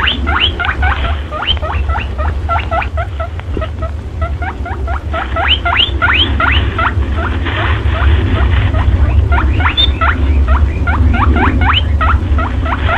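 Rapid high squeaks or chirps, several a second, each rising quickly in pitch, over a steady low hum. This is a trapper's lure call sold as a perentie monitor lizard's calling sound.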